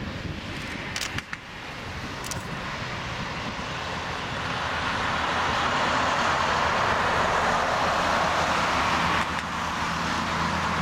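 Airbus A321-231's IAE V2500 turbofan engines at takeoff power as the jet rolls down the runway: a steady jet-engine rush that grows louder over the first several seconds as it nears, then holds.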